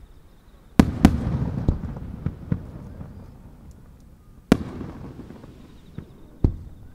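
Japanese aerial firework shells going off in a series of sharp bangs, each trailing a rolling echo. Two loud bangs come close together about a second in, followed by a few smaller cracks, then another loud bang a little past four seconds and one more near the end.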